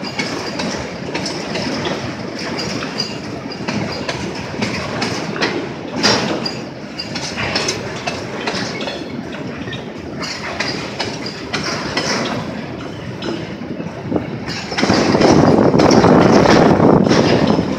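A freight train's empty grain hopper wagons rolling past, their wheels clicking and clattering over the rail joints above a steady rumble. The rumble grows louder for a couple of seconds near the end.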